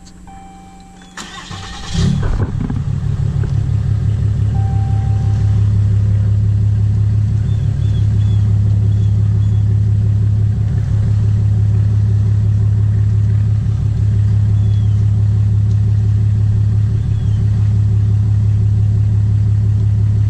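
Straight-piped 6.7-litre Cummins inline-six turbo-diesel of a 2017 Ram 2500, heard from inside the cab. It cranks over about a second in, catches at around two seconds, then idles steadily with a low, even drone.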